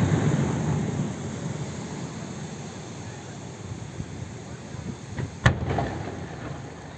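Fireworks display: the rumble of shell bursts fading away over the first couple of seconds, then a single sharp aerial shell burst about five and a half seconds in, with a rolling rumble after it.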